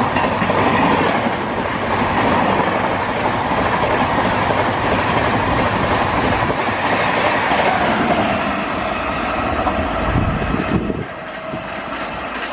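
Coaches of an Amrit Bharat Express passing close at speed: a loud, steady rush of wheel-on-rail and air noise. About eleven seconds in it drops abruptly to a quieter, more distant train sound.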